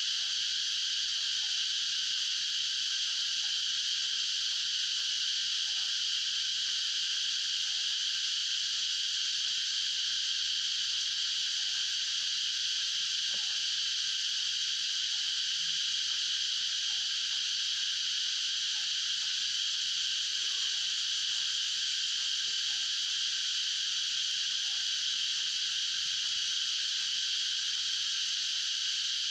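Steady, unbroken high-pitched chorus of calling wild animals, a continuous drone with no pauses or changes.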